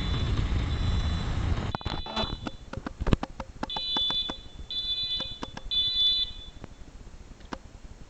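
Wheelock MT-24-LSM fire alarm horn sounding its high-pitched code 3 temporal tone: a longer tone at the start, then three half-second beeps about a second apart, after which it stops. Sharp clicks are scattered throughout.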